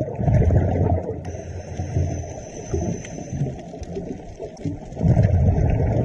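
Muffled underwater rumble and bubbling of scuba regulator exhaust, heard through an underwater camera housing. It swells in surges at the start and again about five seconds in, like exhaled breaths.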